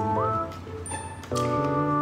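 Background music: held chords with a quick upward slide in pitch shortly after the start and again at the end.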